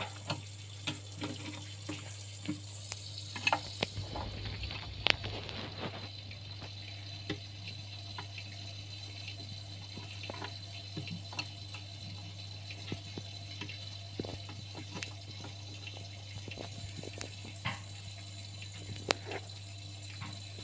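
Water trickling in a land crab's tank over a steady low hum, with scattered small clicks and taps, thickest in the first few seconds.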